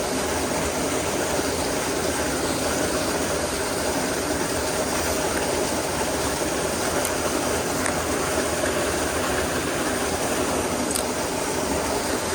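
Mountain stream water rushing steadily over a drop into a pool, with a few faint ticks near the end.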